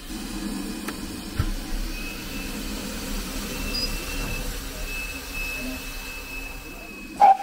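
GWR 4575 class 2-6-2T steam tank locomotive standing with steam up, giving a steady low hiss and rumble with a faint thin high hiss over it. A brief loud sudden sound comes near the end.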